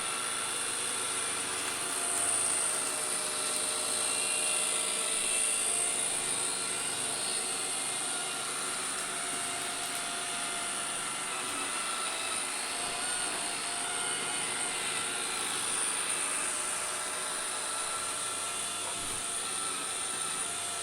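Bralko Galaxy robot vacuum running steadily during a vacuuming test, its suction fan giving a high whine over the hum of its motors and brushes.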